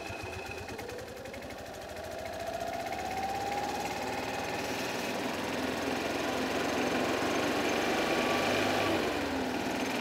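Kawasaki FE290 single-cylinder four-stroke engine of a Club Car DS gas golf cart running just after start-up, speeding up over the first few seconds and then running steadily. It fires and keeps running on freshly replaced fuel filters.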